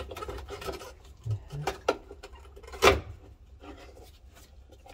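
Hands working parts loose inside a car's interior during disassembly: rubbing and scraping of plastic and metal with a few sharp clicks and knocks, the loudest about three seconds in.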